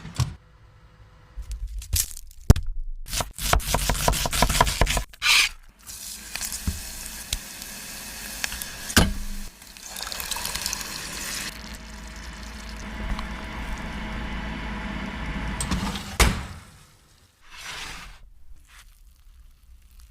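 Food being prepared in a kitchen: a quick run of rapid knocks, then a long steady hiss broken by a few sharp knocks, which stops near the end.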